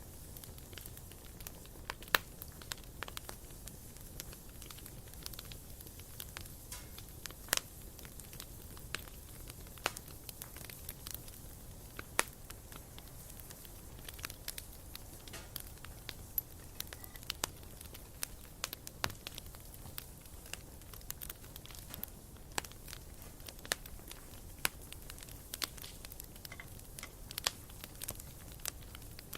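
Campfire crackling, with irregular sharp pops and snaps, a few much louder than the rest, over a soft steady background.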